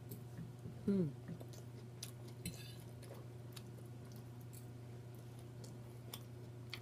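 Close-up eating sounds: chewing and mouth smacks with scattered light clicks. About a second in there is a short voiced sound that falls in pitch. A steady low hum runs underneath.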